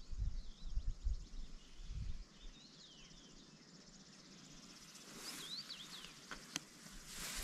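Small birds chirping in short, scattered calls, with low wind rumble on the microphone in the first two seconds. A single sharp click about six and a half seconds in, and a short rush of hiss right at the end.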